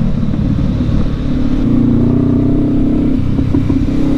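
Adventure motorcycle's engine with an aftermarket slip-on exhaust, heard from the saddle while riding: the engine note drops at the start, then comes back up to a higher, louder note about two seconds in as the bike pulls away.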